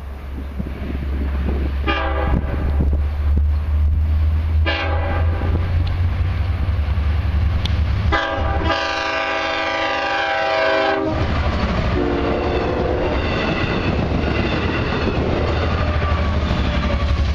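LIRR DE30AC diesel locomotive approaching a grade crossing and sounding its horn: two short blasts, then a long blast of about three seconds and a shorter one, over the steady rumble of the diesel engine. It then passes close by, with the train's wheels clattering on the rails.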